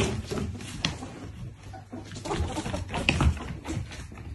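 Ferrets playing on a hardwood floor: quick, irregular clucking chirps, the ferrets' dooking, mixed with the patter of their paws scampering.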